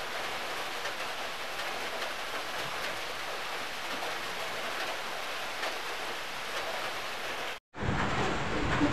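A steady, even hiss at a constant level. About three-quarters of the way through it cuts out completely for a moment, then a louder, different background starts.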